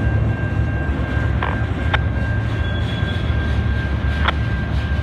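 Freight train of boxcars rolling past with a steady low rumble, a thin high squeal held steady over it, and a few sharp clicks from the wheels and cars.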